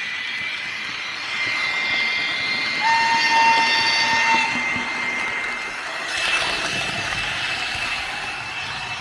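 Märklin H0 model train running on the layout: a steady rolling rattle of metal wheels on metal track, with high whining tones that come and go. The loudest stretch comes from about three to four and a half seconds in.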